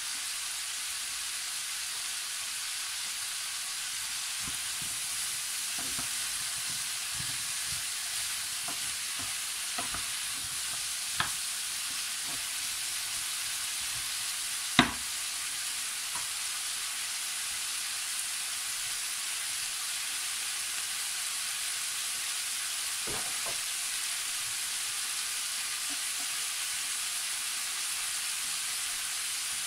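Diced potatoes, carrots and root vegetables sizzling steadily as they fry in a roasting pan. A wooden spoon stirs them in the first half, with a few knocks against the pan, the sharpest about halfway through, and one more a little later.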